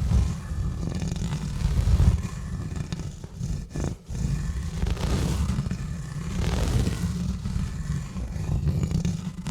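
Exfoliating gloves rubbing and scratching directly on a bare microphone: a continuous deep rumble from the contact, with rougher scratching over it. It cuts out for a moment about four seconds in.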